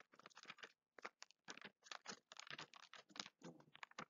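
Near silence with faint, irregular light clicks and rustles, a few to several a second, from small handling noises while a passage is looked up.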